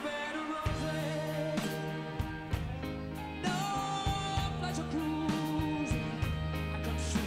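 Background music: a song with a singing voice over a bass line and drums, the bass coming in under a second in.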